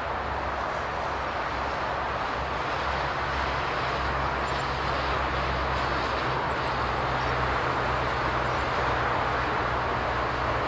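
Boeing 747-8F freighter's four GEnx-2B turbofans at takeoff thrust: a steady jet rush with a low hum beneath it, slowly growing louder as the aircraft lifts off and climbs.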